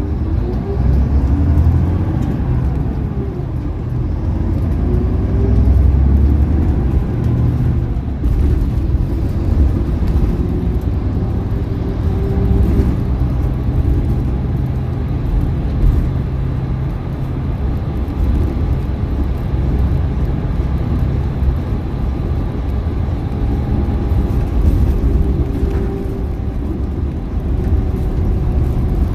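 Volvo B11RT coach heard from inside the cabin while driving: its six-cylinder diesel engine running with the engine note rising and falling in pitch a few times as it pulls through the I-Shift gearbox, over a steady road rumble.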